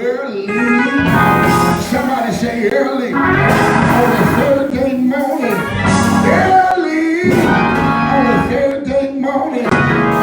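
Church music: a voice singing, drawn-out and gliding in pitch, over instrumental accompaniment.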